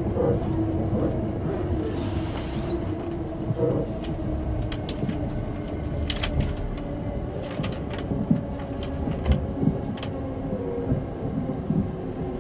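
Inside a limited express train car: a steady low rumble with faint humming tones, and scattered short clicks and knocks, most of them in the middle of the stretch.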